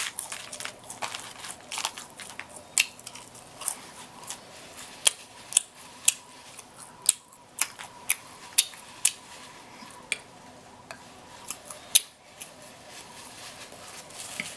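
Eating with mouth smacking: irregular sharp wet clicks and smacks, about one or two a second.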